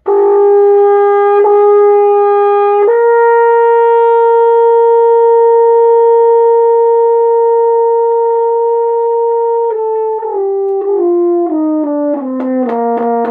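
Double French horn played: a held note, a step up to a long sustained note of about seven seconds, then a descending major scale note by note down an octave. Near the end there is a rattling buzz in the tone, which the player puts down to condensed water collected in the tubing.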